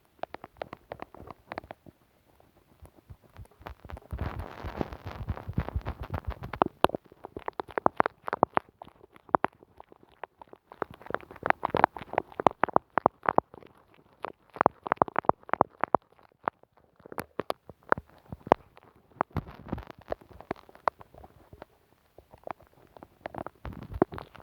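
Close-miked sticky crackling and rapid clicks from glue and tape on an ASMR microphone, dense and irregular, with a wetter, squishier patch a few seconds in.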